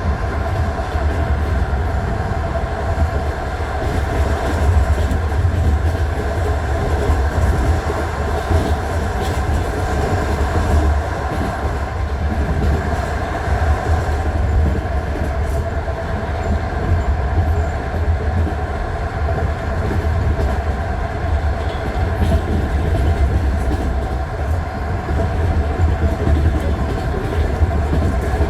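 Passenger train heard from inside a carriage at speed: a steady low rumble with the wheels knocking over the rail joints of jointed (non-welded) track.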